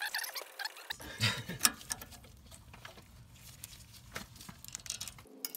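Irregular light clicks and taps of hand tools and small metal parts being handled while the brake line bracket is bolted back on the front suspension.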